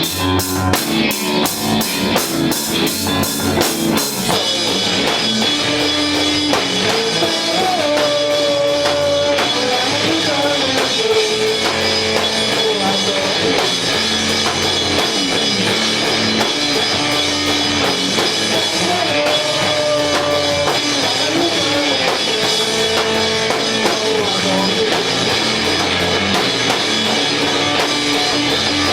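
Live rock band playing loudly on drum kit and distorted electric guitar. For about the first four seconds the drums hit in a fast, even rhythm; then the sound fills out into held guitar chords with a wavering melody line over the beat.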